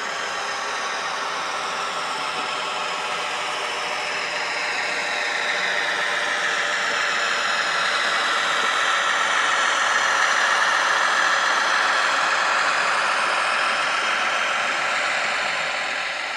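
Engine sound of a Kaluga diesel shunting locomotive running steadily, growing louder towards the middle and easing off near the end.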